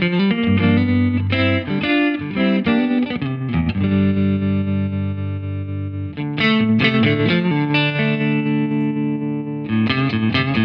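Electric guitar played through a Laney Lionheart Foundry combo amp with its built-in tremolo on, set to a square-ish shape that pulses the volume. Picked phrases alternate with chords left to ring, the first held for about two seconds.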